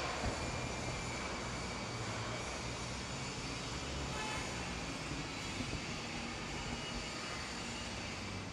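Steady mechanical drone with a low hum underneath, unchanging throughout.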